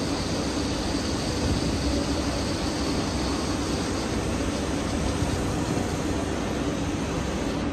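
Woodworking CNC machining centre running with a steady hum and hiss. There are no separate cutting strokes, and the high hiss eases slightly about halfway through.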